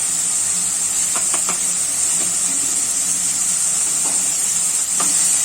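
Chopped tomatoes sizzling in hot oil in a pan as they fry down, a steady hiss, with a few light clicks about a second in and near the end.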